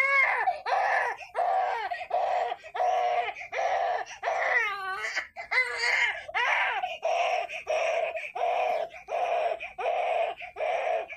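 A baby crying in a steady run of short, repeated wails, about three every two seconds, each with a bending pitch.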